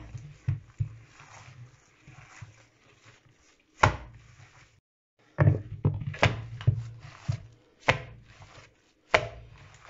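Raw minced meat being kneaded and beaten by gloved hands in a plastic bowl: a series of dull slaps and thuds, about one a second in the second half, with a short pause midway. The mince is being beaten until it is dense enough to hold on skewers.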